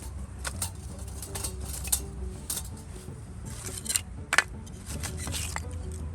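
Wood campfire crackling, with irregular sharp pops, the loudest about four seconds in, over a low steady rumble.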